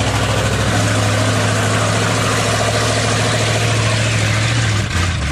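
GMC truck's small-block 400 V8 idling steadily while the truck sits stuck in a mud puddle.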